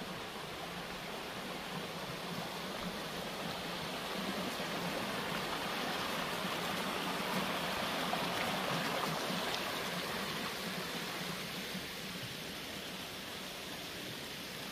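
Small woodland stream rushing over rocks: a steady splashing rush that swells for several seconds in the middle and eases again.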